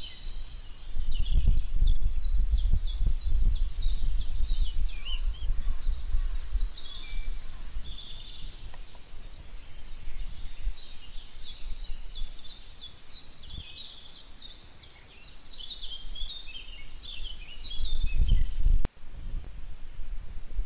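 Many birds chirping and trilling in quick repeated notes over a low rumbling noise. The rumble is strongest in the first few seconds and swells again near the end, where it cuts off abruptly.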